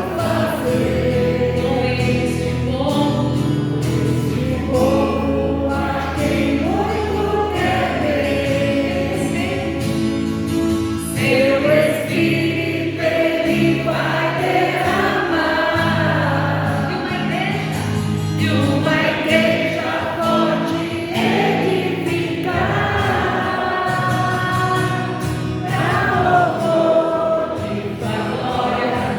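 Christian worship song: a group of voices singing a melody over steady held low accompaniment chords.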